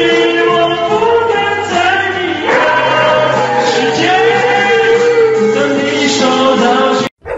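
A dog howling long, wavering notes into a microphone over a karaoke backing track with a steady bass line. The sound breaks off abruptly near the end.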